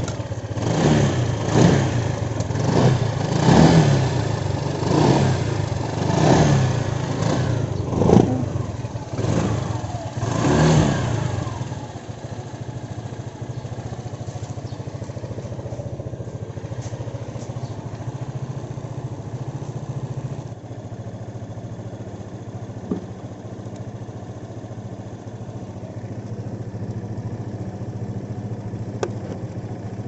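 Honda PCX 150's single-cylinder four-stroke engine, just jump-started off a flat battery with jumper wires, revved about nine times with quick throttle blips over the first eleven seconds, then settling into a steady idle.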